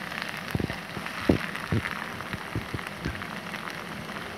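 Sliced onions sizzling and crackling in hot oil in a frying pan, with a few short low thumps, the loudest about a second in.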